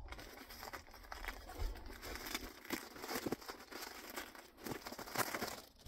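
Plastic wrapping crinkling and rustling in irregular crackles as a foam RV vent insulator is handled and unwrapped.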